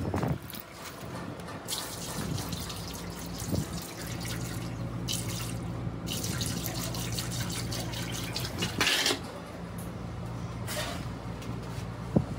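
Liquid dripping and splashing, with several short hissing spurts, over a steady low hum.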